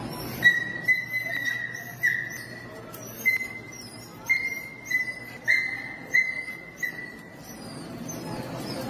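A dog yelping in pain, about ten sharp, high-pitched yelps in quick succession over seven seconds as it is dragged across a tiled floor, then stopping.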